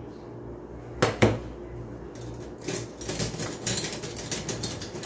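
Dishes and cutlery clinking: two sharp knocks about a second in, then a run of rapid light clinks and rattles from about three seconds in.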